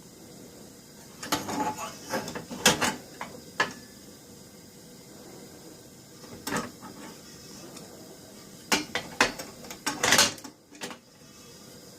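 Metal clinks and knocks in irregular clusters as a brass padlock is handled and set in position: a run of them from about one to four seconds in, a single one near the middle, and another run near the end.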